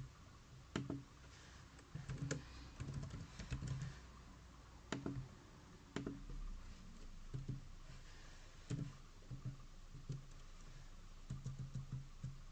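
Faint computer keyboard typing: short, irregular runs of key clicks with pauses between them.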